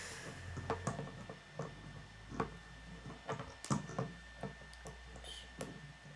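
K'nex plastic rods and connectors being handled and snapped together: a dozen or so irregular small plastic clicks and taps.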